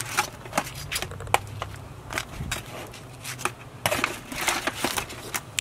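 Metal tongs clicking and scraping as grilled tortillas are lifted off a charcoal grill grate and stacked in an aluminium foil pan: a string of irregular sharp clicks.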